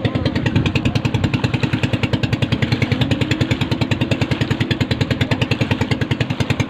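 Boat engine running with a rapid, even chugging and a steady low drone.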